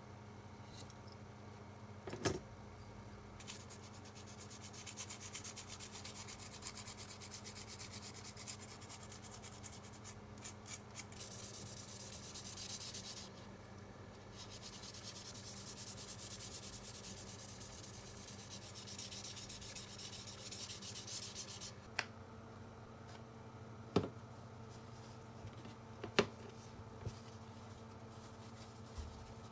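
Rapid hand rubbing strokes, a fast scratchy hiss that runs from a few seconds in until about 22 seconds, with a short pause in the middle. Several sharp knocks come near the start and toward the end.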